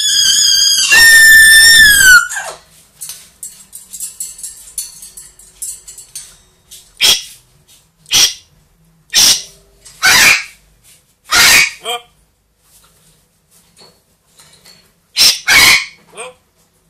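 Pet parrot giving a loud, long whistled screech that stops about two seconds in. Faint clicking follows, then a string of about seven short, harsh squawks, roughly a second apart, with the last two close together.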